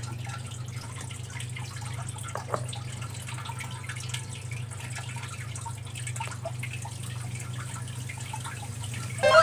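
Faint drips and light plastic clicks as water is dripped from a dropper into a toy volcano's baking soda and citric acid mix, over a steady low hum. Right at the end a loud burst of falling whistle tones begins.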